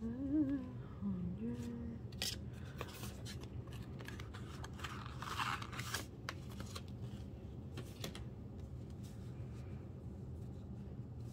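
Plastic packaging crinkling and tearing as album packs are opened, with light clicks and taps from handling the photocards; a longer tearing rustle comes about five seconds in.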